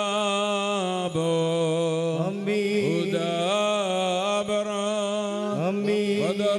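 A man's voice chanting a liturgical prayer of the wedding service over a microphone and loudspeakers, in long held notes that slide from pitch to pitch, with short breaks for breath.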